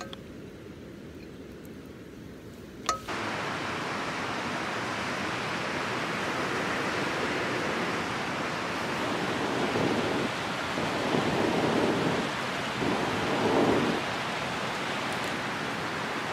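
Steady rushing of a rocky mountain river, an even wash of water noise that swells a little near the end. The first three seconds are quieter, closing with a sharp click.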